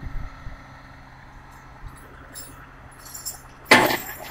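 Tow truck engine idling with a steady low hum. About three and a half seconds in, a loud sudden sound cuts across it and fades over a fraction of a second.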